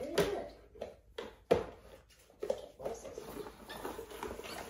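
Nerf Elite Dart Rower pushed over a rug, its spinning finned roller clicking and rattling as it sweeps up foam darts, with a sharp knock about a second and a half in and a quicker run of ticks near the end.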